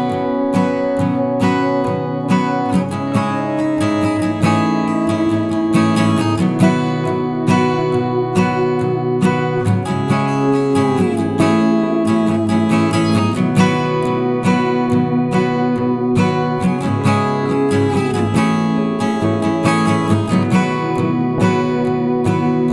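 Live band music led by a strummed acoustic guitar, with other plucked strings and a steady rhythm. A few notes slide in pitch.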